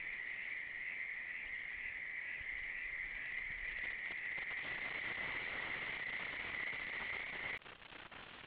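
A steady high-pitched chorus of crickets picked up by a trail camera's microphone. It cuts off abruptly about seven and a half seconds in.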